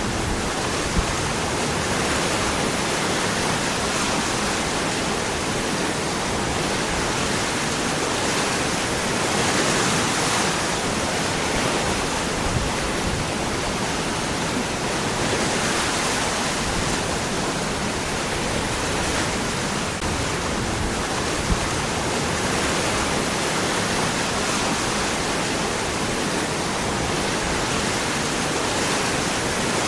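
Waterfall: a steady, even rush of water falling among rocks, swelling slightly now and then.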